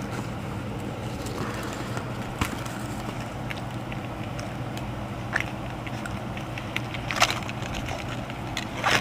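Plastic packaging being handled: a few faint clicks and crinkles over a steady low hum, with a louder crinkling at the very end.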